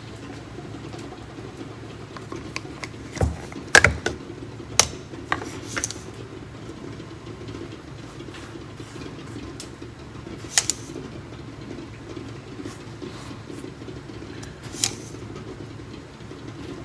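A metal spoon clinking and tapping as sugar is spooned and spread over buttered paratha dough. The clinks are sharp and short, clustered about three to six seconds in, with single ones later. Under them runs a steady low machine hum.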